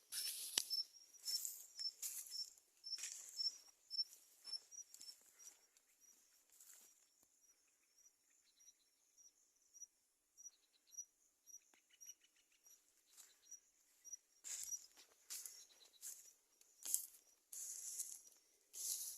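Countryside nature ambience: a high chirp repeats about three times a second and fades after the first third, with short trills in the quieter middle. Intermittent rustling and crackling runs over it and is busiest at the start and near the end.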